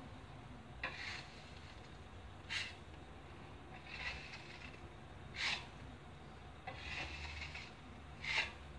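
Metal putty knife scraping across a freshly filled wall patch, smoothing the filler in about six strokes a second and a half apart.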